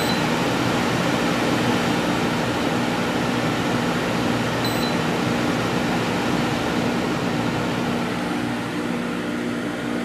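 A GE ADEL70LRL2 dehumidifier's squirrel-cage blower runs steadily with a low hum. The control panel gives a short, high beep right at the start and again about halfway through as the fan-speed button is pressed. The running sound gets a little quieter near the end as the fan steps down to low speed.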